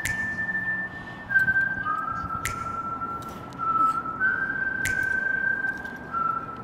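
Background music led by a whistled melody: a single clear tone holding long notes and stepping between a few pitches. A sharp percussive hit lands about every two and a half seconds, three times.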